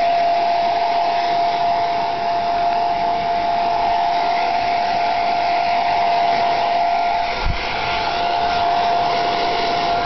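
Handheld hairdryer on its coolest setting, blowing steadily with an even whine. A brief low thump about seven and a half seconds in.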